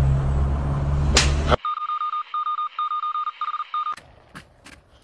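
Steady low rumble of a vehicle on the road, which cuts off abruptly about a second and a half in. Then comes a run of short electronic beeps at one high pitch for about two seconds, followed by faint scattered clicks.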